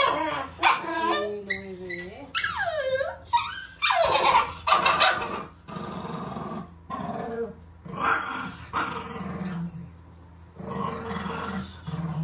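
Six-month-old Shih Tzu puppy crying in high whines that slide up and down for the first few seconds, then growling in a run of short rough bursts. The growls are the sign of a frightened puppy resisting being handled in the bath.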